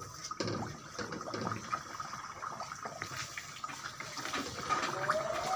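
Bhatura deep-frying in hot oil: a steady sizzle of bubbling oil, full of small crackles.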